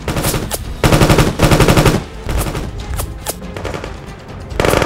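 Automatic gunfire: long rapid bursts about a second in and again near the end, with scattered single shots in between.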